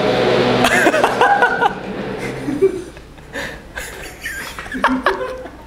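A young man's voice breaks off mid-sentence into laughter, a few short chuckles.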